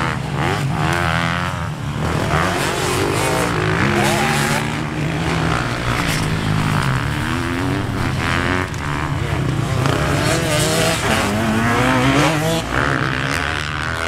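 Pit bike engine ridden hard, its pitch climbing and dropping again and again as the throttle is opened and shut through the turns and gears.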